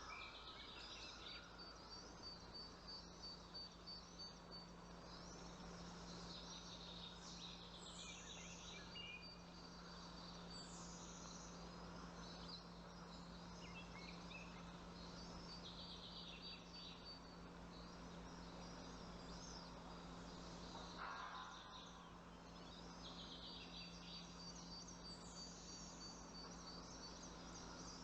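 Small birds chirping faintly in clusters of short, high, quick calls at a nest, over a thin steady high whine and a low steady hum. There is one brief louder noisy sound about three-quarters of the way through.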